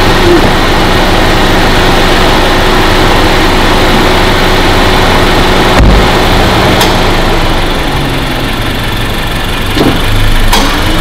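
Turbocharged Honda Civic four-cylinder idling steadily just after a remote start, its idle stepping down to a lower speed about two-thirds of the way through. A sharp thump sounds about six seconds in.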